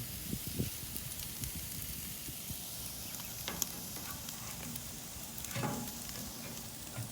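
Small steaks sizzling on a hot grill, freshly sprayed with cooking spray: a steady hiss with a few short pops.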